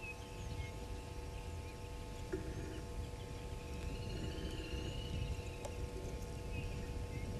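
Bush ambience: a low steady rumble with faint bird chirps, a longer rising-and-falling call around the middle, and a low buzzing tone that comes and goes twice.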